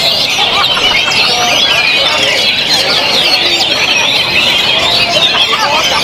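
Many caged oriental magpie-robins singing at once: a loud, dense chorus of quick, overlapping whistled phrases and chatter that never lets up.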